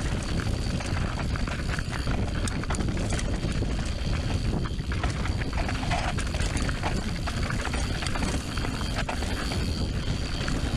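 Wind rushing over the action camera's microphone as a mountain bike descends a dirt trail at speed, with frequent clicks and clatter from the bike as it rattles over bumps.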